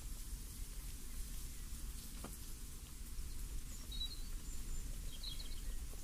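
Steady breeze in the open air, with a small bird giving two short bursts of high chirps about four and five seconds in, and a single click about two seconds in.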